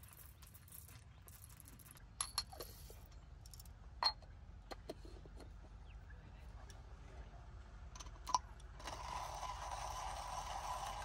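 A few light clicks and knocks as beans and the hand grinder are handled, then, about nine seconds in, a Comandante C40 hand coffee grinder starts grinding beans with a steady grinding sound.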